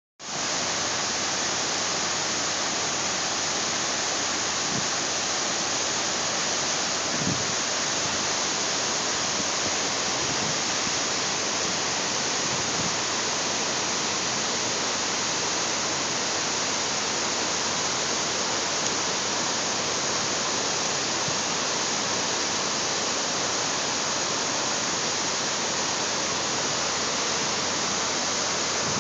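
Steady rush of water falling in sheets down the walls of the 9/11 Memorial's North Pool, a man-made waterfall, unchanging throughout.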